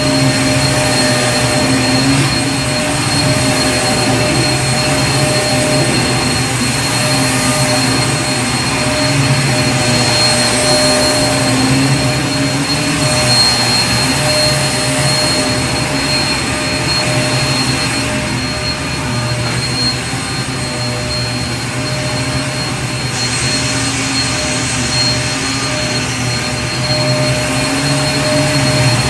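Vacuum cleaner running steadily: a continuous rush of air over a motor hum and a fixed high whine. The level eases slightly about two-thirds of the way through and then comes back.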